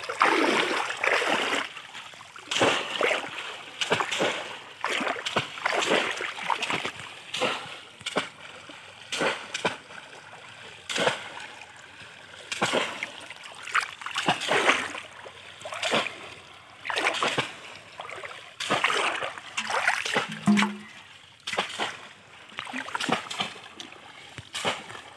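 Bamboo cone fish traps slapped down again and again into shallow muddy water by two people. There is a splash about every second or so.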